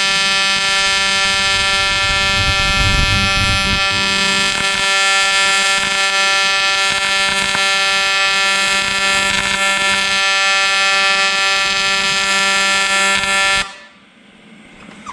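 TIG welding arc buzzing steadily with a strong, even pitched hum, then cutting off suddenly near the end when the arc is stopped.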